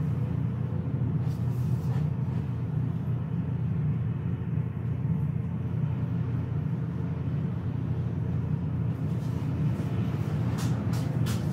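Steady low mechanical hum, with a few short hisses near the end.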